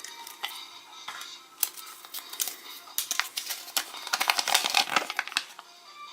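Kinder Surprise egg being unwrapped and opened by hand: foil crinkling with sharp clicks and taps of plastic, denser and louder about four seconds in. Soft background music runs underneath.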